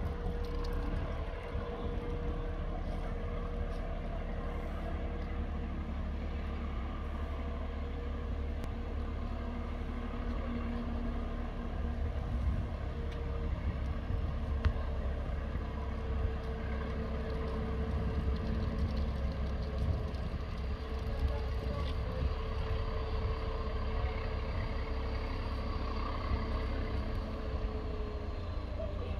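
BR Class 14 diesel-hydraulic locomotive's engine idling steadily: a low rumble with a held hum that drops slightly in pitch near the end.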